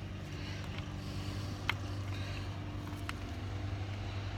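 A steady low hum runs throughout, with three light clicks about a second in, in the middle and near three seconds in: small parts being handled while the clock spring wires are routed in the steering column.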